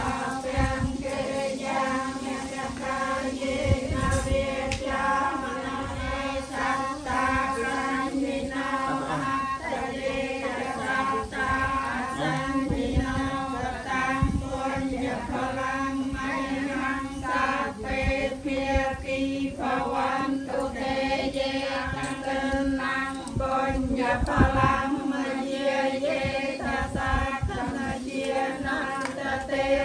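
Group of Buddhist laypeople, mostly women's voices, chanting together in a steady, even recitation with a held drone underneath.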